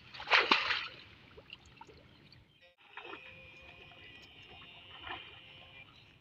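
Shallow water splashing and sloshing as a person wades through a flooded field of dense water plants, with a loud splash and rustle about half a second in. From about three seconds in, a faint steady high whine runs under the water sounds.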